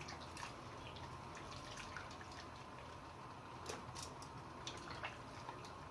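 Faint water dripping with a few light clicks and ticks as blanched cabbage leaves are lifted out of hot water.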